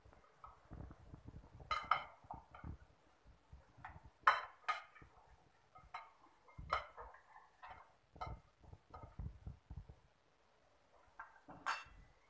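A metal spoon clinking against a glass bowl, about six sharp clinks at uneven intervals, while raw fish pieces are tossed with seasonings, with soft wet handling sounds in between.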